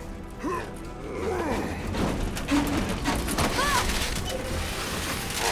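Cartoon soundtrack: background music with clattering and crashing sound effects that thicken about two seconds in.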